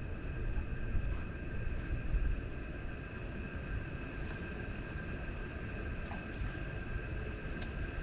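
Wind buffeting the microphone as a steady low rumble, under a constant high-pitched two-note whine.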